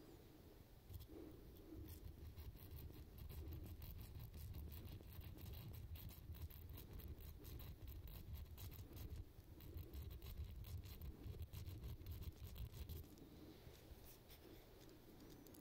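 A small hand-held hook sharpener scraping against the point of a fishing lure's treble hook, close to the microphone: a quick run of light, scratchy strokes that thins out near the end.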